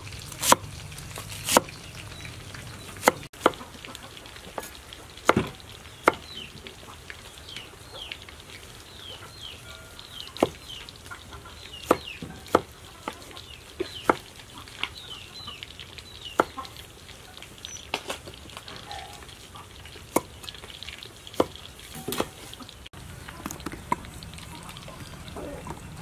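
Cleaver slicing onion and tomatoes on a wooden chopping board: single sharp knocks of the blade striking the board, spaced irregularly a second or two apart.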